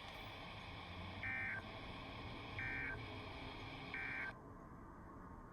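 Emergency Alert System end-of-message (EOM) signal: three short buzzy bursts of SAME digital data about 1.3 seconds apart, marking the end of the warning broadcast. They come over a weather-radio receiver's hiss, which drops off suddenly after the third burst.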